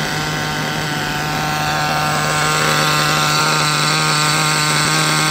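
Small nitro engine of a VRX-2 1/8-scale RC buggy running at a steady idle, an even drone that holds one pitch.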